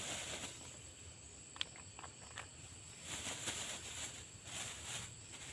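Rustling and a few sharp light clicks of close handling, over a steady high-pitched drone of insects.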